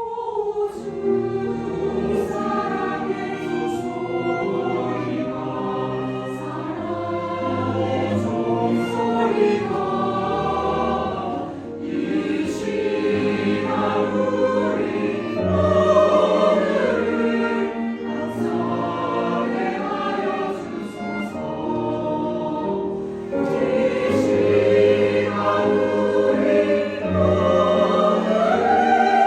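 Mixed church choir singing a hymn arrangement in harmony with sustained chords, accompanied by piano, violin and cello, growing louder in the later phrases.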